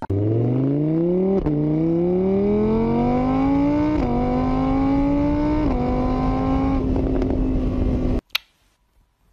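Motorbike engine sound accelerating, its pitch climbing, dropping back at three gear changes and climbing again, until it cuts off suddenly about eight seconds in. A sharp click follows.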